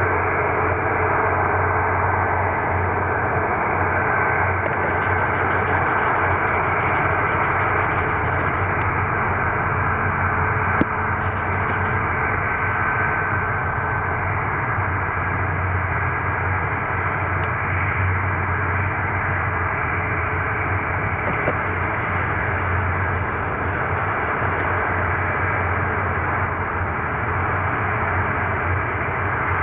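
Rolls-Royce Trent XWB turbofans of an Airbus A350-1000 running at low taxi power, a steady distant jet rumble with a faint high engine whine.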